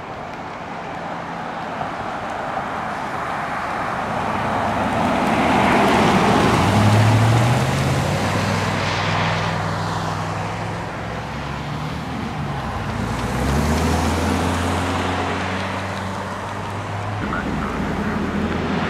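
Emergency vehicles driving past: road and engine noise swells as a police SUV goes by about seven seconds in, then the low, steady drone of a fire engine's diesel engine builds as it approaches.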